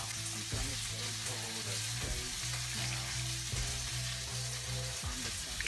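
Background music with held low notes over a steady hiss.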